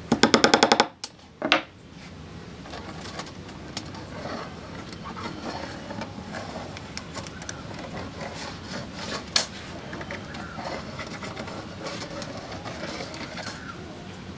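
A quick run of sharp hammer taps on a nail in a wooden tabletop, then one more knock. After that come light scratching and handling noises from pencil marking and a metal tape measure on the wood, with a sharper click near the middle.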